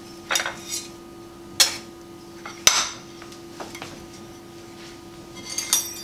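A metal pie server scraping and clinking against a pie dish and a ceramic plate as a slice of pie is cut free, lifted out and set on the plate. There are a few short scrapes and one sharp clink in the first three seconds, then a quick run of small clinks near the end.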